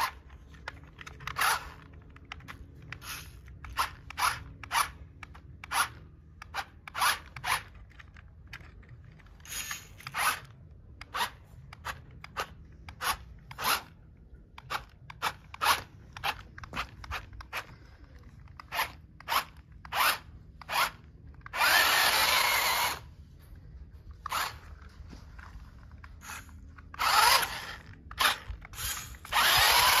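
Toy RC rock crawler's electric motor and gearbox whirring in many short bursts as the throttle is blipped, then in longer runs of a second or more about two-thirds of the way through and again near the end.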